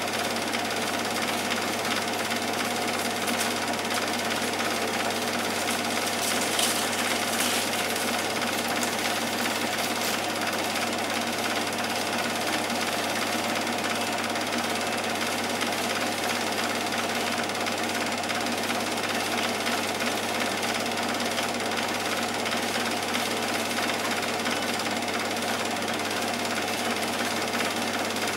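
Cine film projector running, a steady mechanical clatter with a constant hum.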